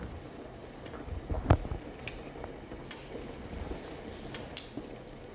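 Hot pot broth bubbling at a rolling boil in a two-compartment stainless steel pot, a steady crackly hiss with small pops. A single sharp tap comes about a second and a half in.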